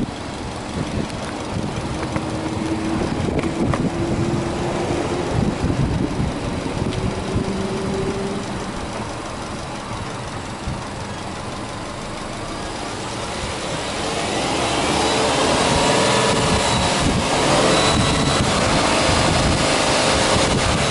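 Subaru Legacy B4 2.0GT spec.B's turbocharged 2.0-litre flat-four (boxer) engine running, first at a steady idle, then brought up to higher revs and held there, louder, for the last third or so.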